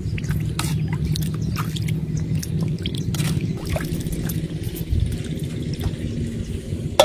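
Fish head and garlic cloves going into a pot of water with small splashes and clicks of a metal spoon, over a steady low rumble. A sharp click comes right at the end.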